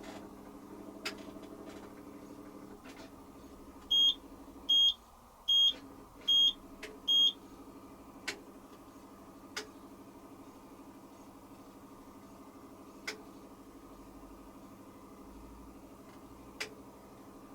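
Hoover Quattro AE130 washing machine running with a steady motor hum. About four seconds in, the control panel gives five short high beeps in quick, even succession, and a few single clicks sound now and then.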